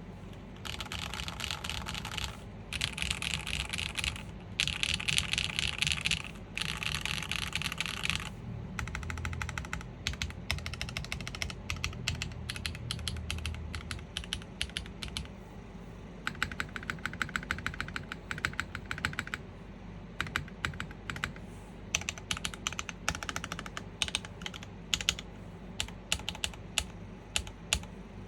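Typing on an IRON165 custom mechanical keyboard with a polycarbonate plate, gasket mount, factory-lubed Sarokeys BCP switches and GMK keycaps. Fast runs of keystrokes fill the first eight seconds and again around the middle of the second half, with slower, separate key presses between and near the end.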